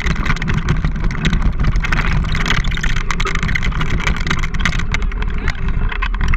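Mountain bike rolling fast over a rough dirt trail, picked up by a camera mounted on the bike: a loud, steady rumble of tyres on dirt with a dense rattle of clicks and knocks from the bike and mount.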